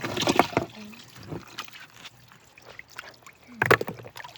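Creek water trickling over rocks, with a short burst of voice at the start and a sudden loud noise near the end.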